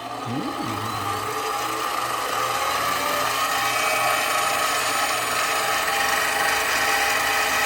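Grizzly 7x12 mini metal lathe running, a steady machine whine with several held tones, rising in level over the first second or so and then holding steady.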